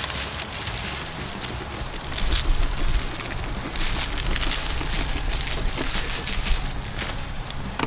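Shredded pecan wood chips and leaves pouring out of a plastic tote and pattering onto leaf-covered ground: an even rustle that swells a few times as the tote is tipped.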